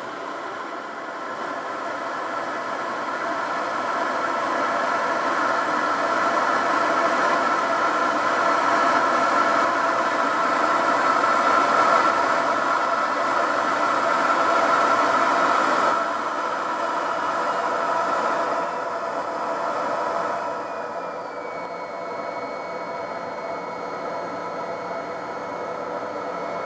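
Jet engine noise heard inside the cockpit during takeoff and climb: a steady rushing noise with a whine of several tones, growing louder over the first dozen seconds, then dropping back a step about sixteen seconds in and again a little later. Near the end a faint high tone slides slowly downward.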